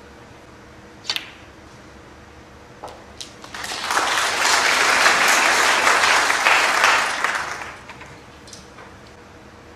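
Snooker audience applauding a good pot: the clapping swells about three and a half seconds in and dies away over about four seconds. A single sharp click comes about a second in.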